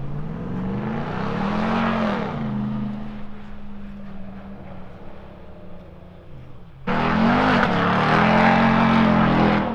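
Vehicle engines running as trucks drive past. One engine rises and falls in pitch about two seconds in, then settles and fades. A much louder engine comes in suddenly near the end.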